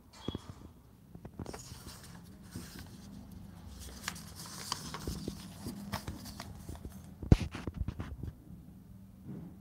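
Paper pages of a printed book being handled and turned, rustling and crinkling with small clicks, then a single sharp knock about two-thirds of the way through. A faint steady low hum lies underneath.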